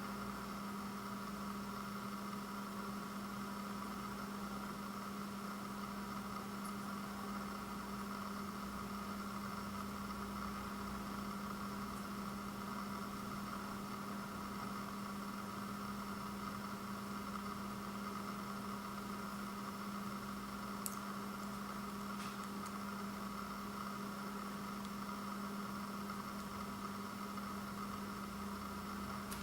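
Steady electrical-sounding hum with a fainter higher whine over it, unchanging throughout, broken only by a couple of faint clicks about two-thirds of the way through.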